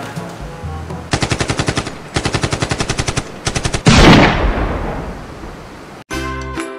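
Sound-effect machine-gun fire in three rapid bursts of about ten shots a second, then a loud blast that dies away. Near the end comes a short pitched sound effect.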